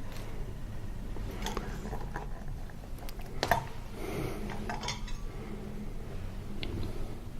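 Kitchen utensils and containers being handled: scattered light clinks and knocks, the loudest about three and a half seconds in.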